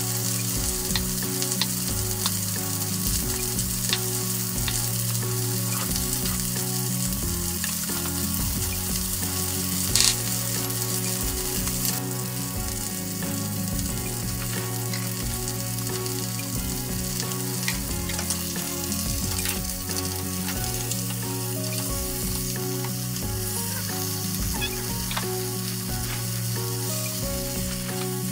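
Chicken thigh sizzling steadily in a frying pan with green beans, with butter and lemon juice melting into the pan fat. There is one sharp knock about ten seconds in, and near the end the chicken is being turned in the pan.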